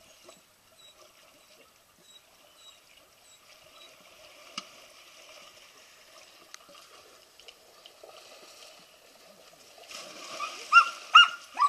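Pool water lapping and trickling as dogs swim. About ten seconds in there is a big splash in the pool, and a dog barks twice, sharp and high, which is the loudest sound.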